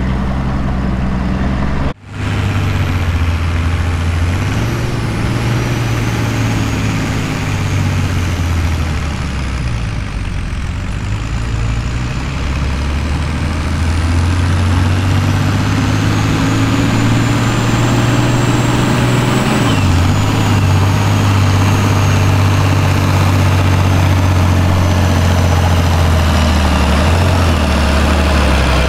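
Ford farm tractor's diesel engine working hard under load as it pulls a weight-transfer sled, a steady low drone whose pitch rises and dips a little along the run. There is a brief break in the sound about two seconds in.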